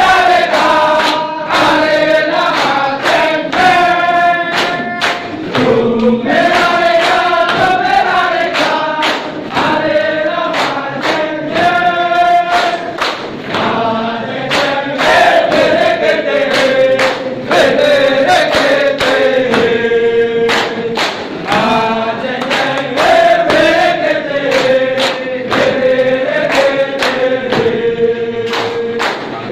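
A large group singing a yel-yel cheer-chant together in unison, with a steady beat of sharp hits about twice a second under the voices.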